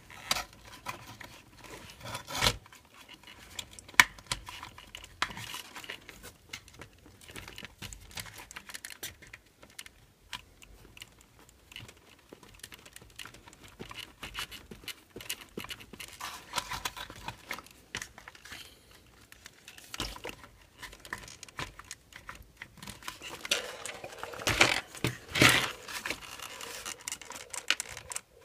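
Small plastic parts of an RC truck being handled and fitted by hand: scattered clicks, taps and rustling, busier and louder near the end.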